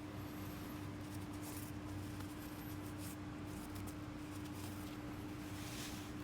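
Faint rustling and handling of packaging as a fishing rod is unwrapped, a few soft scratchy noises over a steady low electrical hum.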